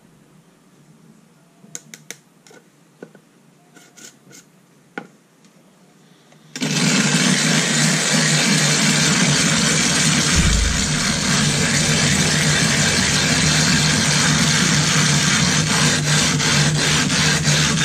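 A few light clicks from a metal tin being handled. About six and a half seconds in, a loud, continuous gritty grinding starts: a silicon carbide sharpening stone is being scrubbed over a glass plate with loose silicon carbide grit slurry, lapping it flat.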